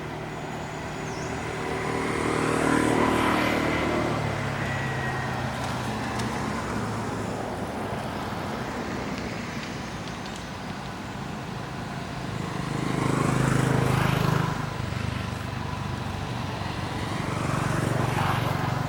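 Road traffic: three motor vehicles pass one after another over a steady traffic background, each engine swelling, then dropping in pitch as it goes by.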